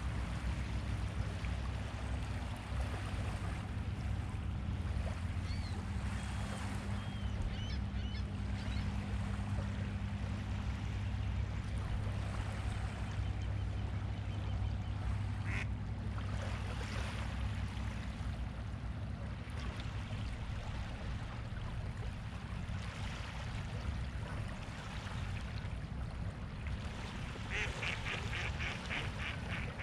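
Waterfowl calling a few times over a steady low rumble, with a quick run of rapid calls near the end.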